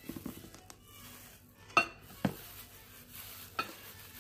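Eating fried fish by hand from a plate: soft handling noise with a few sharp clicks and taps, two close together about two seconds in and one more near the end.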